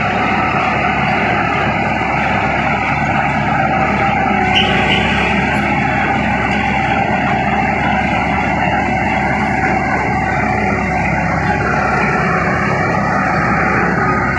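Bulldozer's diesel engine running steadily while the machine works.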